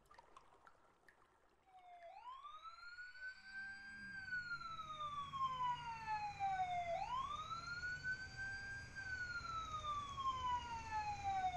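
Police siren wailing, fading in after about two seconds of near silence and growing louder. Each cycle rises quickly and then slides slowly down, about every five seconds, over a low steady hum.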